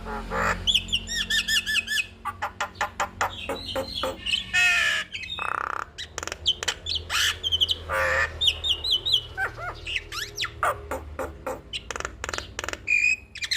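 Javan myna (jalak kebo) singing a fast, varied song of harsh squawks, rattling clicks and runs of repeated whistled notes.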